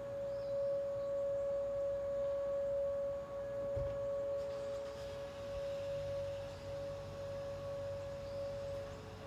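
Outdoor warning sirens sounding a steady tone for a monthly test: one strong held pitch, with a fainter, slightly lower tone beneath it.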